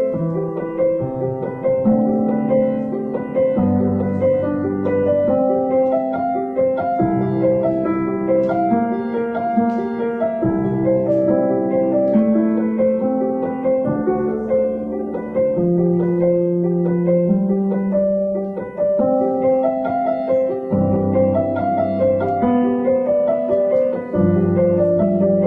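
Background music: a calm piano piece with sustained chords over a slow bass line.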